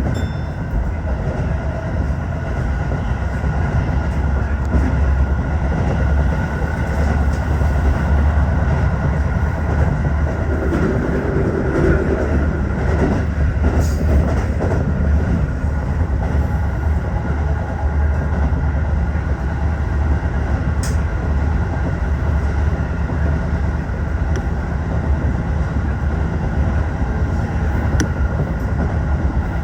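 Tokyo Metro 15000 series commuter train running at speed: a steady rumble of wheels on track, with a few faint clicks along the way.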